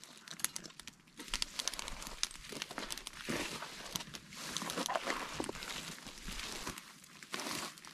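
Dry brush and twigs crackling and rustling as they are handled and stepped on, with many small sharp snaps.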